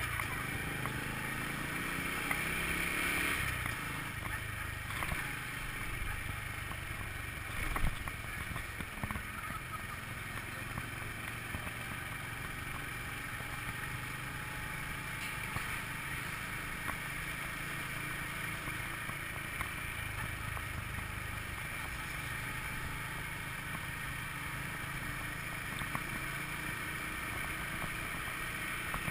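Honda scooter's small engine running steadily at low road speed, with wind and road noise on the handlebar-mounted microphone. A brief thump about eight seconds in.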